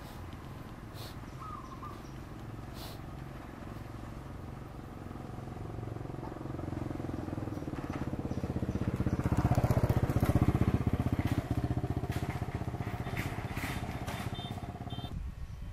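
A motor vehicle's engine passes by, a low pulsing run that grows louder to a peak about ten seconds in, then fades.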